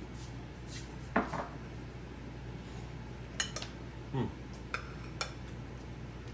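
Cutlery clinking and scraping against a plate while eating: about five separate clinks and scrapes, the loudest about a second in, over a low steady hum.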